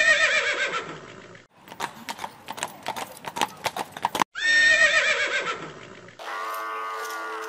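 Horse sound effects: a horse whinnies, a quick run of hoofbeats clatters, then the same whinny sounds again. Near the end a steady held note starts.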